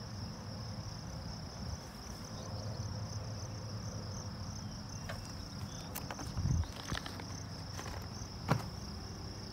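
Steady high chirring of field insects, with a few sharp clicks and a dull thump in the second half, the thump being the loudest sound.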